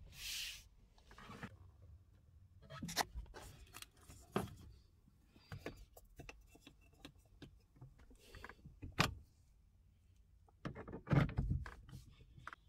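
Scattered clicks, taps and rubbing from hands handling a car's interior: the steering wheel, the dash-mounted gauges and the gear lever. The loudest knocks come about eleven seconds in, as the gear lever is taken hold of.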